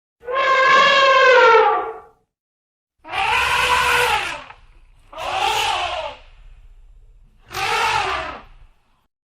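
Elephant trumpeting: four calls with short silences between them. The first is the longest, about two seconds, and drops in pitch at its end; the other three are shorter and arch up and down in pitch.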